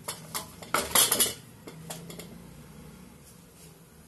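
Steel kitchenware clattering: a few sharp clinks, a loud cluster of clatter about a second in, then a few lighter knocks.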